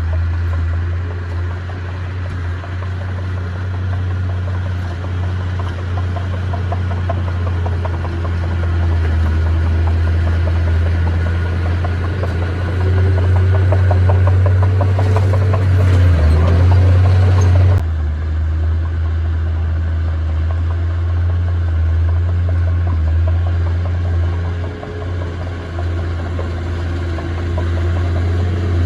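Heavy earthmoving machine's diesel engine running with a steady low drone and a fast, fine pulse. The sound grows louder and busier partway through, then drops back abruptly about two-thirds of the way in.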